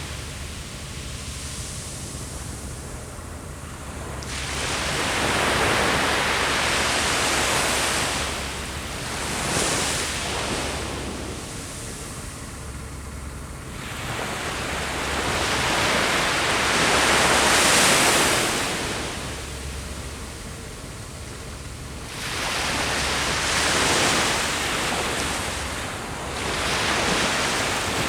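Ocean waves breaking and washing up a beach. Each surge of surf swells for a few seconds, then ebbs, about five times.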